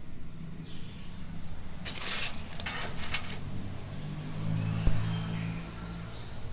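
Handling noise: a crinkling, rustling scrape lasting about a second and a half, then a single sharp thump about five seconds in, over a steady low hum with faint bird chirps.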